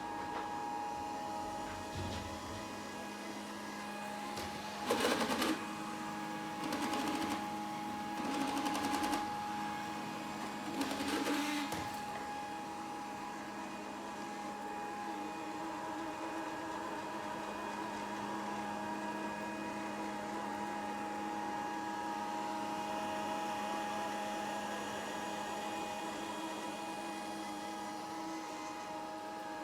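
Grundig VCR 2131 robot vacuum running: a steady motor whine holding several fixed tones, with four short, louder noisy spells between about five and twelve seconds in.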